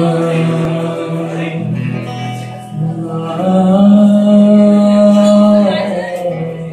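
Male vocalist singing live, holding long drawn-out notes, the second one higher and louder, with acoustic guitar accompaniment.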